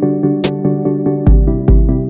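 Electronic background music: synthesizer notes over a steady beat, with a sharp hit about half a second in and deep bass notes in the second half.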